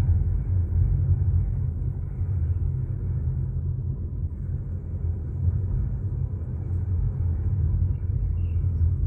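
Steady low rumble of a car driving along the road, engine and tyre noise with no change in pace.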